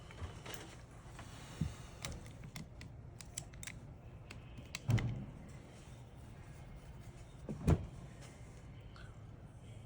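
Small tools and phone parts being handled on a work bench: light clicks and taps, with two louder knocks, one about five seconds in and one near eight seconds, over a low steady hum.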